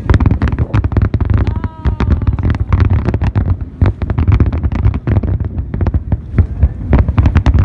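A fireworks display going off in a dense barrage: many sharp bangs a second, overlapping without a break, over a heavy low rumble.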